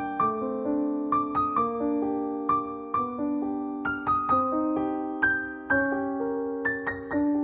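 Background music: a gentle piano or electric-piano melody, single notes struck and left to fade.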